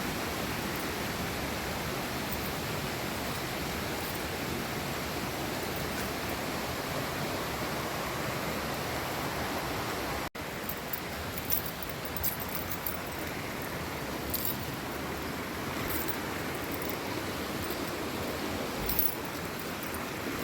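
Steady rush of flowing water. There is a sudden break about halfway through, after which the rush goes on slightly quieter, with short high-pitched sounds over it.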